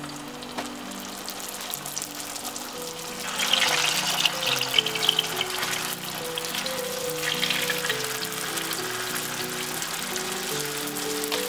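Turon, banana and jackfruit spring rolls, sizzling in hot oil as they are laid into the frying pan one by one. The sizzle swells about three seconds in and flares again around seven seconds as more rolls go in, with soft background music throughout.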